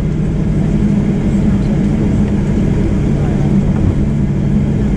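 Steady cabin rumble of a Boeing 737-800 rolling on the ground after landing, with a low engine hum. One hum tone shifts and strengthens about three seconds in.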